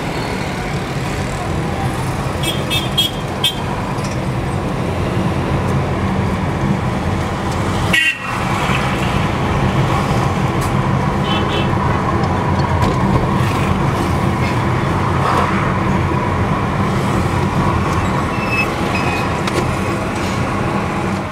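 Steady engine and road noise from inside a moving vehicle in street traffic, with several short horn toots.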